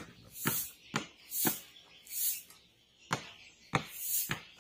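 A small plastic ball bouncing on a concrete yard, struck down by hand: sharp slaps in two pairs, the second pair about two seconds after the first. A pulsing high hiss comes and goes in the background.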